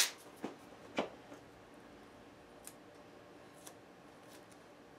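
A few soft handling clicks and taps from hands working a roll of tape at a guitar's neck. Two or three sharper clicks come in the first second and a half, then faint single ticks about once a second over quiet room tone.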